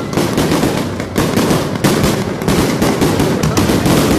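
Fireworks display at close range: a loud, dense barrage of overlapping bangs and crackling bursts with no pauses between them.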